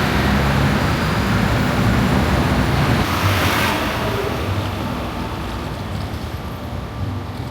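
A loud machine running steadily, with an uneven low rumble under a broad hiss that brightens for a moment about three seconds in.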